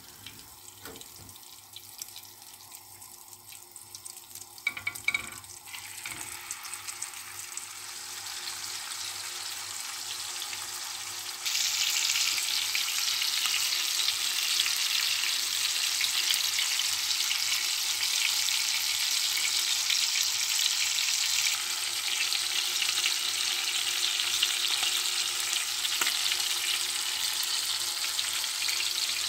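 Melted butter frying in a glass baking dish on a gas burner: a faint sizzle that builds steadily, then jumps suddenly louder about eleven seconds in as a beef steak is laid in. The steak then sizzles loud and steady in the hot butter.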